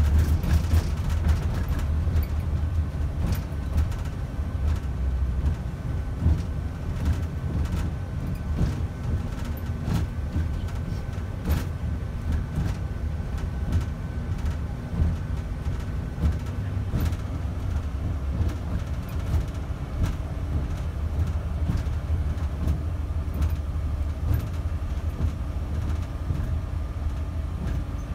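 Steady low rumble of a coach bus's engine and road noise heard from inside the cabin while driving, with scattered small rattles and knocks. A faint whine sits over it and steps down slightly in pitch a little past halfway.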